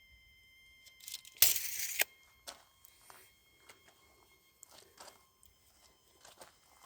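A brief burst of rustling noise about a second and a half in, then faint scattered clicks and knocks.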